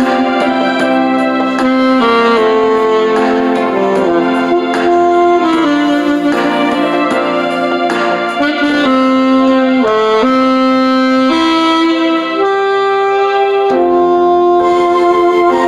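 Saxophone playing a slow melody of long held notes over an accompaniment.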